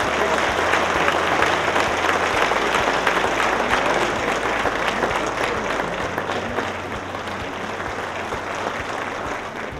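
Audience applauding: a dense round of clapping that slowly dies down towards the end.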